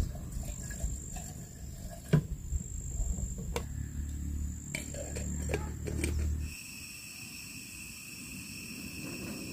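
Wind rumbling on the microphone, with several sharp clicks and knocks of camp cookware and a gas stove being handled. About two-thirds of the way through this gives way to a steady, high insect drone with a light breeze.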